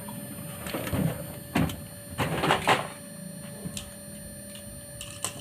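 LG inverter washing machine's BLDC motor running on test with a steady whine, with a few knocks and clatters in the first three seconds.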